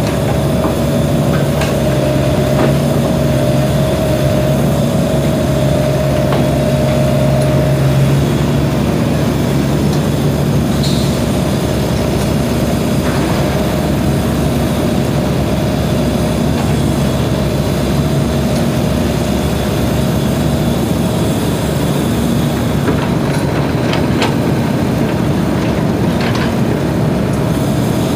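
SANY compact crawler excavator's diesel engine running under working load as the machine slews and digs, a steady drone with a higher hum over it. The low drone is strongest for the first eight seconds or so, then drops back.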